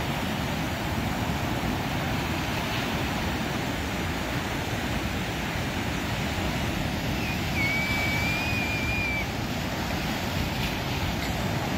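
Ocean surf breaking and washing over a rocky shore: a steady rush of waves.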